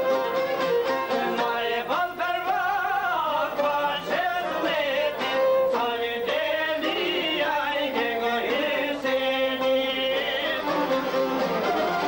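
A man singing an Albanian folk song with long, wavering notes, accompanied by a çiftelia, the two-string long-necked Albanian lute.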